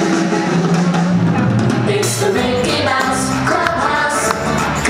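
Music from a children's stage show, with singing over a drum beat.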